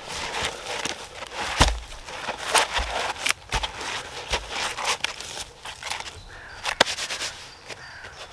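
Footsteps through dry woodland floor litter, with irregular crackles and snaps of twigs and leaves underfoot and a few dull footfalls.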